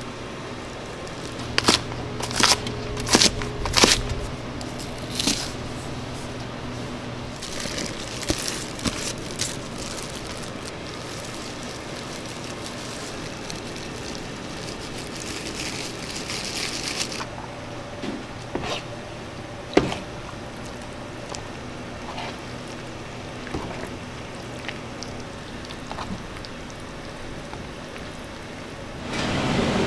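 Kitchen preparation sounds: several sharp clicks and knocks near the start, then a soft hiss of powder sprinkled over cut green onions, then a few more knocks, over a low steady hum. A louder steady rushing noise comes in right at the end.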